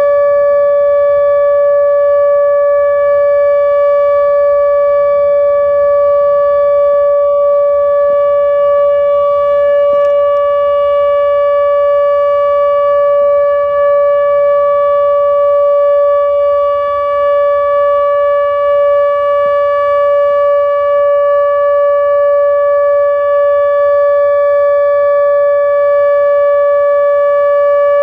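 ATI HPSS-32 electronic warning siren sounding a loud, steady alert tone: one unbroken pitch with its overtones, no rise or fall. It is the nuclear plant's 4-minute alert signal, sounded here as a scheduled test.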